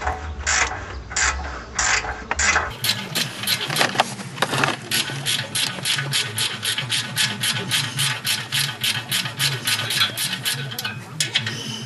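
A 12 mm GearWrench ratcheting wrench clicking steadily, about four clicks a second, as it backs off an exhaust bolt.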